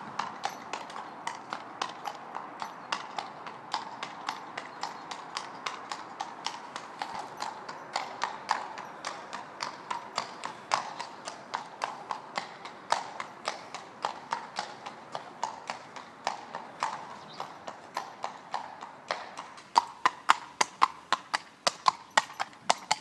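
Hooves of a shod horse clip-clopping on a tarmac road at a walk, a steady run of about two to three strikes a second. The strikes grow louder near the end as the horse comes close.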